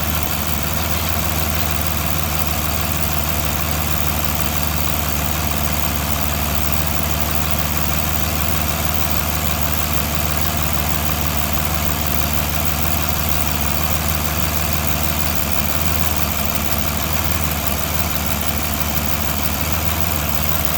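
2009 Aston Martin DB9's V12 engine idling with a loud, irregular ticking; the engine misfires on cylinder 6 with each tick. The ticks are sparks from a faulty No. 6 ignition coil arcing onto the right-hand inlet manifold.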